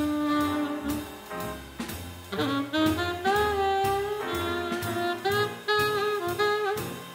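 Small swing jazz band playing live: saxophone carrying the melody in held and moving notes over piano, upright bass and drums keeping an even beat.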